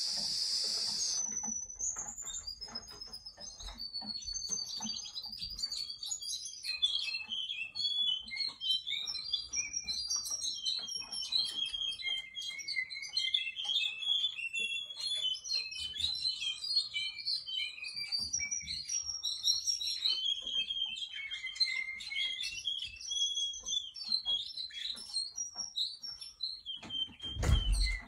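Russian singing canary singing a long, unbroken song of high whistled notes, glides and fast trills, with a few lower steady-pitched passages. The song opens after about a second of harsh hiss, and there is a low thump near the end.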